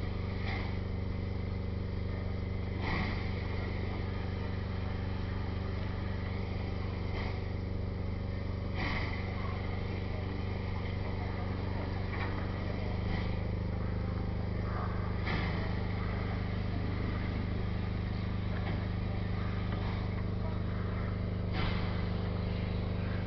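Standing steam locomotive giving a steady drone that shifts slightly in pitch about halfway through, with a few short sharp knocks.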